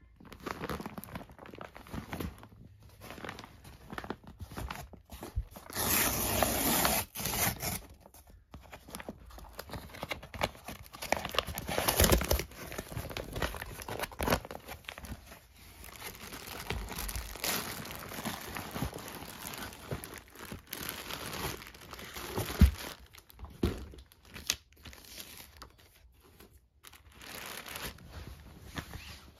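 A brown kraft-paper mailer being torn open and crumpled, with tissue paper and a plastic bag rustling and crinkling as the package is unwrapped. The loudest stretch of tearing comes about six seconds in, and a single sharp tap sounds about two-thirds of the way through.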